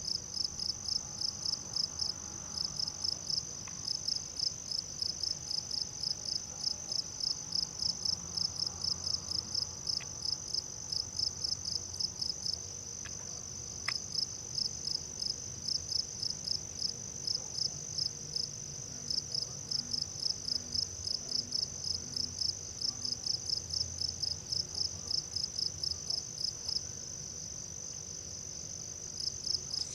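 Insects chirping in a chorus: a steady high trill with rhythmic short chirps at about three a second, pausing briefly now and then.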